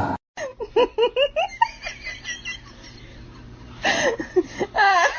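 High-pitched laughter in quick repeated bursts, which fades in the middle and comes back louder near the end, after a brief loud sound at the very start.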